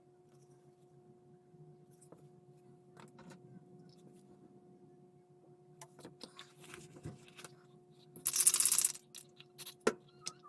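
Hands at work on a plastic model at a workbench: scattered clicks and rustles over a steady low hum, then a loud, short hissing rip about eight seconds in, followed by a few sharp clicks.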